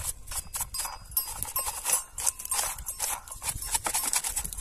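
A small stiff-bristled brush scrubbing the chain-oil outlet hole and channel on a petrol chainsaw's body in quick, irregular scratchy strokes, clearing out old oily sawdust.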